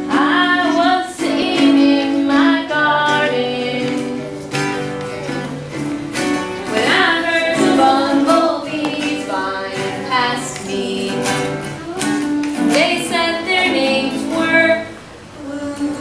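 A woman singing a children's song, with young children's voices joining in, accompanied on a small acoustic guitar.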